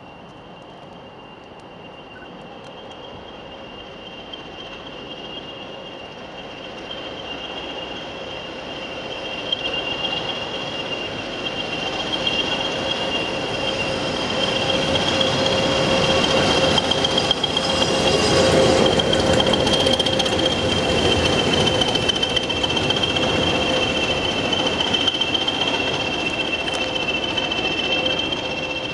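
English Electric Class 20 diesel-electric locomotive passing, its English Electric 8SVT engine sound building as it approaches, loudest about two-thirds of the way through, then easing as it moves away. A steady high-pitched whine sits over it throughout.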